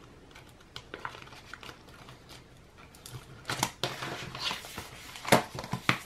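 Handling a cash-envelope binder: soft rustling of bills and plastic, then several sharp clicks and knocks in the second half as the binder's snap tab is fastened and the binder is picked up and set down.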